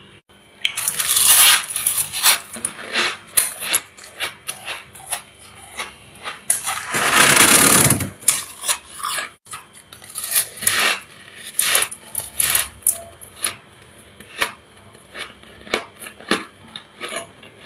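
Thick freezer frost crunching: scraped and scooped off the freezer walls by hand, with two longer scraping passes, one about a second in and one around seven seconds, and many short crisp crunches as the frost is bitten and chewed.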